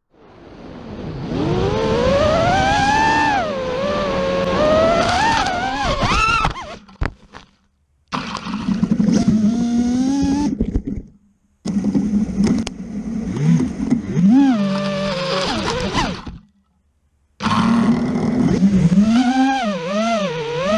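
Freestyle quadcopter motors and propellers whining, the pitch rising and falling quickly with the throttle. The sound comes in four stretches that stop abruptly, with short silent gaps between them.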